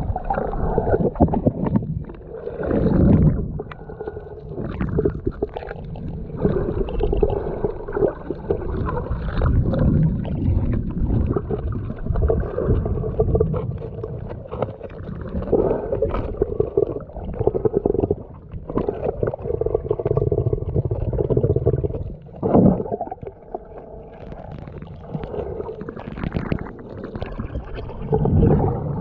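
Muffled underwater sound picked up by a submerged camera: an irregular, swelling rumble and gurgle of water moving around it, with scattered clicks.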